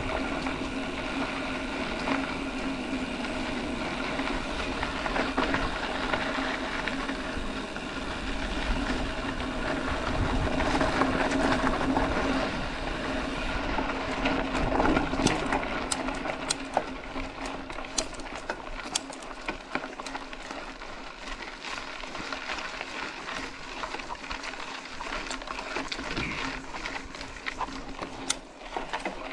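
Mountain bike riding: a steady hum over a low rumble for the first half, then quieter rolling with many sharp rattling clicks, as over rough ground.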